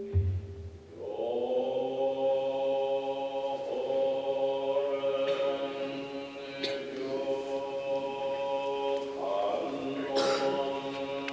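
Zen monks chanting a sutra in unison on one long-held pitch, a low, drawn-out monotone that sets in about a second in and breaks briefly for breath a few times. It opens with a low thump, and a few sharp clicks sound over the chant.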